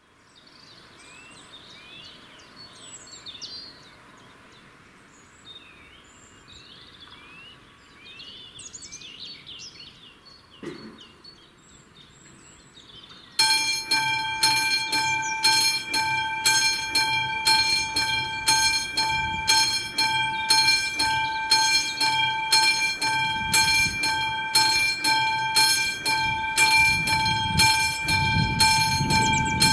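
Birds chirping, then about 13 seconds in a classic level-crossing warning bell starts ringing suddenly, struck about twice a second with a steady clear pitch, signalling that the crossing has activated for an approaching train. Near the end a low rumble of the approaching train builds under the bell.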